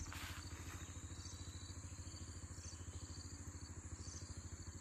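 A vehicle engine idling steadily: a low, even pulsing throughout. Insects buzz faintly and steadily above it.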